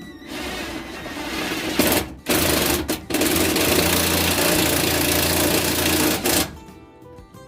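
Drill driving a self-tapping screw into the tractor's metal to fix a ground wire. It runs loudly from just after the start, stops briefly twice around two and three seconds in, then runs steadily until it cuts off about six and a half seconds in.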